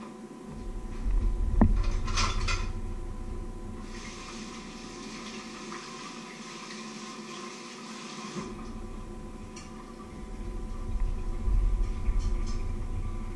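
Kitchen work sounds: a few knocks and clatters of dishes near the start, then several seconds of water running from the sink tap, turned on and off, with rumbling handling noise again near the end.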